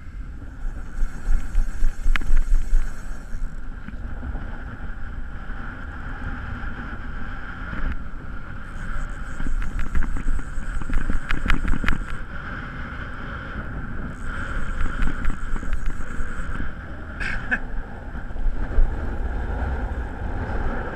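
Strong wind buffeting the microphone as a constant low rumble over choppy shallow water. Three stretches of hissing, each lasting a few seconds, come and go over it.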